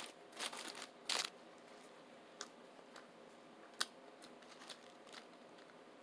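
Quiet, scattered crinkles and clicks of someone eating a loaded footlong tuna sub, a handful of short crackly bites and handling sounds, the loudest about half a second and a second in.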